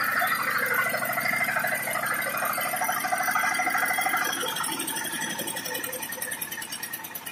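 Dongfeng single-cylinder diesel engine running a belt-driven 20 kW generator head, with a fast, even firing beat. From about four seconds in it eases off and gets steadily quieter.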